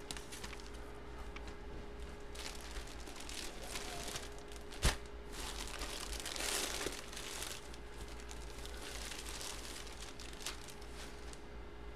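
Clear plastic bag crinkling as it is handled, with a single sharp click a little under 5 s in and a louder stretch of crinkling about 6 to 7 seconds in.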